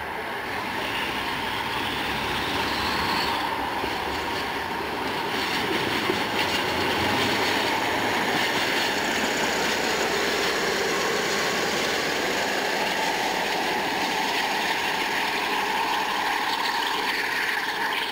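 Class 47 diesel locomotive's Sulzer twelve-cylinder engine working under power as it passes, growing louder over the first several seconds and then holding steady. A whine rises in pitch over the first few seconds.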